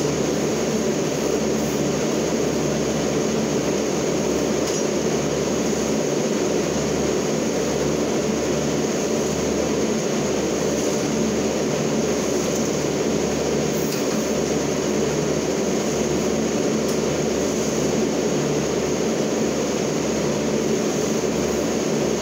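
A forklift's engine running steadily: an unbroken mechanical drone with a faint high whine over it.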